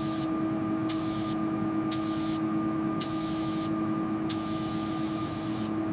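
Paint spray gun hissing in repeated passes, switching on and off about every second, over a steady low hum.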